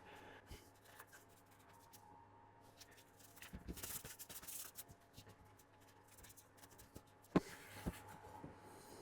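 Faint rubbing and rustling of a cloth wiping greasy finger marks off the plastic housing of a cordless electric carving knife, busiest a few seconds in, with one sharp knock of the knife being handled late on.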